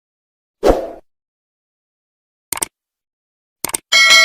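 Subscribe-button animation sound effects: a short soft hit less than a second in, a quick mouse click near the middle, a double click near the end, then a bright bell ding that starts ringing just before the end.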